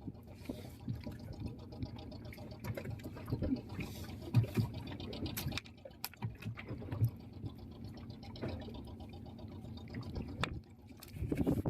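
Water sloshing and dripping around a small fishing boat at sea, with irregular knocks and splashes.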